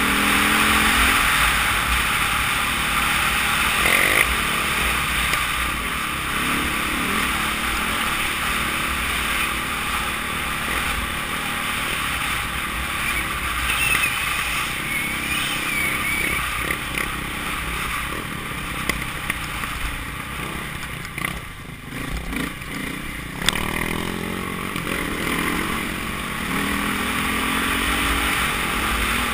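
Dirt bike engine running while the bike is ridden, with a steady rushing noise over it; the engine pitch rises near the start and again late on, and the sound drops briefly a little past two-thirds of the way through.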